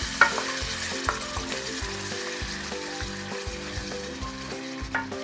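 Thick, nearly cooked spicy gravy sizzling in a pan while a wooden spatula stirs and scrapes it from the sides. There are a few sharp knocks of the spatula on the pan, the loudest just after the start.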